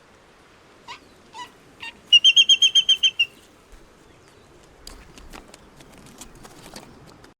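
A bird calling: three short calls, then a loud, rapid run of about nine high chirps lasting about a second. Faint scattered clicks and rustling follow.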